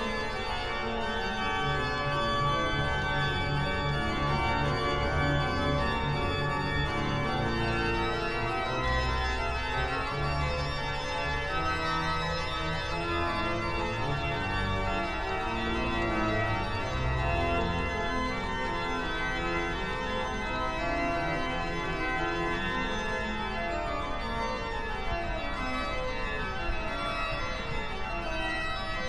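Organ music: sustained chords over deep bass notes that drop away just past halfway, then descending runs of notes near the end.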